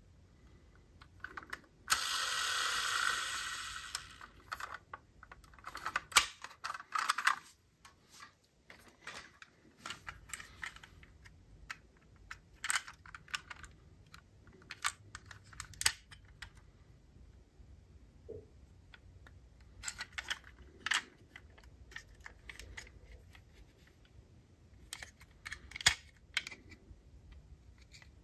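Light clicks and taps of die-cast metal toy cars being handled and set down, in irregular clusters, with a brief rustling scrape about two seconds in.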